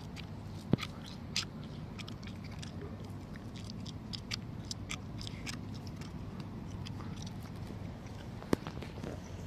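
A cat crunching dry food, a quick irregular run of small crunches, with two louder clicks about a second in and near the end.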